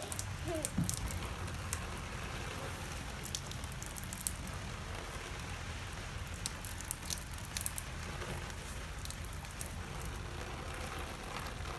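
Light rain: scattered drops ticking now and then over a low, steady outdoor rumble.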